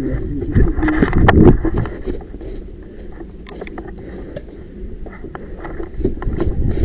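Footsteps and rustling of a player moving through woodland undergrowth, with scattered knocks and clicks of kit. The sound is heaviest in the first second and a half, then quieter.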